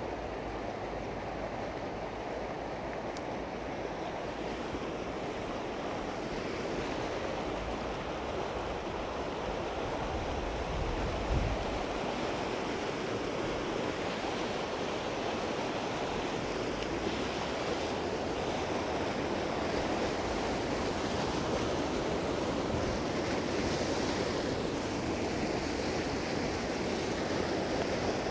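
Rapids of a mountain river rushing over rocks: a steady, unbroken rush of white water.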